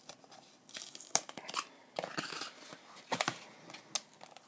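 Sticky paper being ripped and peeled off a plastic Blu-ray case in several tearing, crinkling bursts, with a few sharp clicks from the case.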